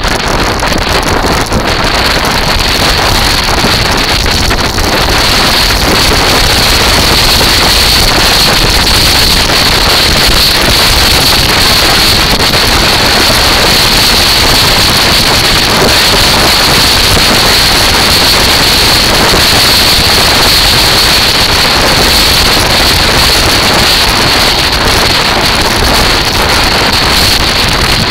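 Kite buggy rolling over a shingle beach: its wheels grinding over stones and shells mixed with wind buffeting the microphone, a loud, steady noise with a constant high hiss through it.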